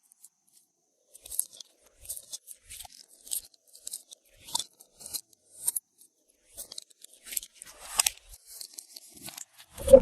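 Glossy slime being mixed and stretched by hand, giving irregular sticky crackles and small pops, with a louder, deeper squelch near the end.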